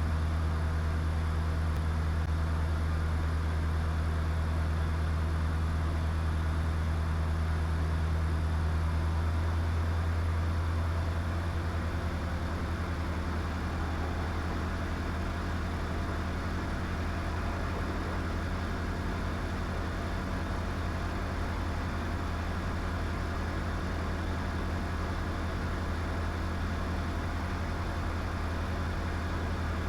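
Diamond DA20 light aircraft's piston engine and propeller droning steadily in flight, easing slightly lower about a third of the way through, as with a power reduction in the circuit.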